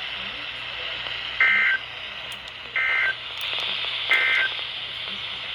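Emergency Alert System end-of-message data tones: three short, warbling two-tone digital bursts a little over a second apart, marking the end of the alert broadcast. They play over a steady radio hiss.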